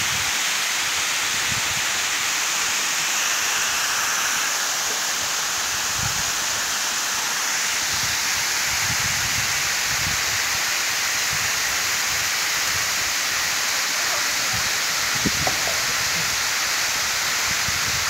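Waterfall pouring down a rock face into a pool: a steady, even rush of falling water, mostly high and hissing.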